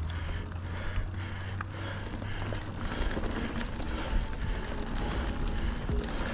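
Santa Cruz Bronson mountain bike rolling along a dirt trail: steady tyre noise, with scattered clicks and knocks from the bike. Wind rumbles on the microphone through the first half.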